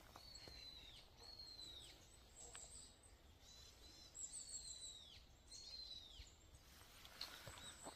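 Faint bird calls from the woods: about five or six short calls, each starting high and dropping in pitch, with thin high chirps among them.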